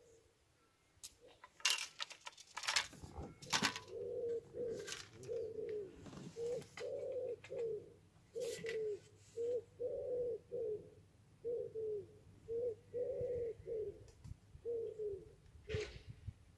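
A pigeon cooing: a run of low coos in repeated phrases of four or five notes. Several sharp clicks and knocks come in the first few seconds, and one more near the end.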